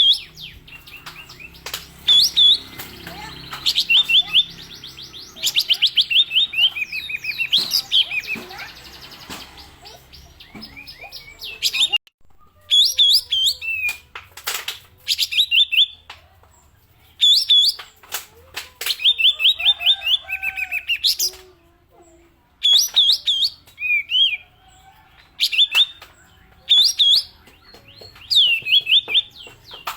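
Kapas tembak songbird singing its 'pistol' song: short, repeated phrases of rapid, sharp downward-sweeping notes, with brief pauses between phrases.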